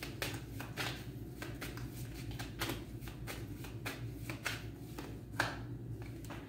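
A deck of tarot cards being shuffled by hand: a quick run of soft card flicks, about three a second, with one sharper snap about five seconds in.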